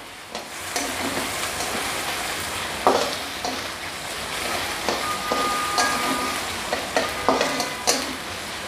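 Chicken pieces sizzling in hot oil in a metal wok while being stirred with a spatula, which scrapes and knocks against the pan several times.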